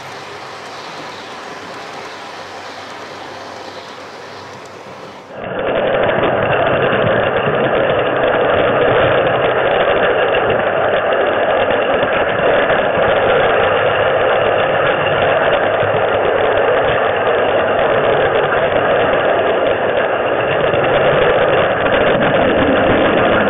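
Model train rumbling along its track, then about five seconds in a sudden change to a louder, steady whir and rattle of the model train's motor and wheels, picked up by a camera riding on the train.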